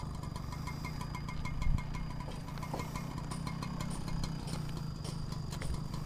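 Small engine running steadily with a low hum, with one dull thump just under two seconds in and a quick series of faint high chirps in the first half.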